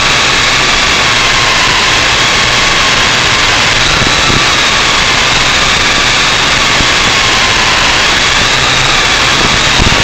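MJX X101 quadcopter's motors and propellers whining in flight over a loud, steady hiss. The whine's pitch wavers slightly up and down.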